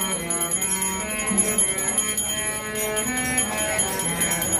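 Small brass hand bell (ghanta) rung steadily during an aarti, a continuous high ringing over devotional music with a moving melody.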